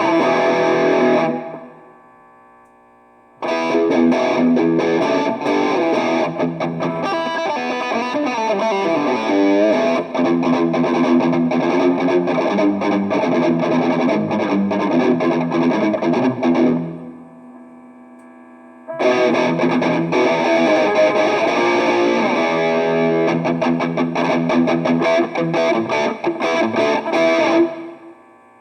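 Electric guitar played through an Arcano Metal End distortion pedal into a small amp, heavily distorted, in three bursts of picked riffing with a falling pitch slide in the middle. It is a demonstration of the pedal's tone and switch settings. In the short pauses between riffs the amp's faint hum carries on.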